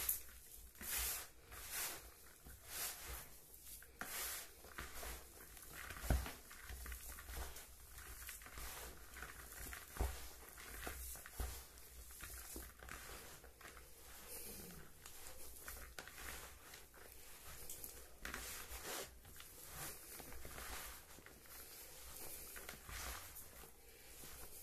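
Hands squeezing and kneading a crumbly fishing-bait mash of mashed ripe banana in a plastic bowl: a soft rustle with each squeeze, about one a second at first and then closer together, with a few sharper knocks in the middle.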